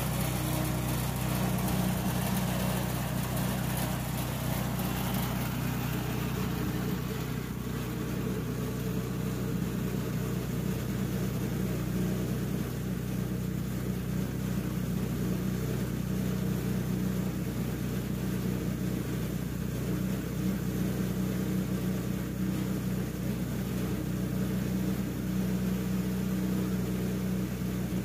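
Wood-Mizer LT10 portable bandsaw mill's gasoline engine running steadily at an even speed.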